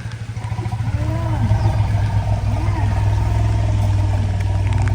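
A motor vehicle's engine running, a low pulsing hum that gets louder after about a second, with a faint arching tone rising and falling about once a second over it.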